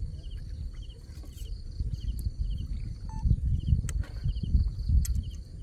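Wind buffeting the microphone with a gusty low rumble, under a cricket-like insect chirping steadily in short pulsed chirps about twice a second.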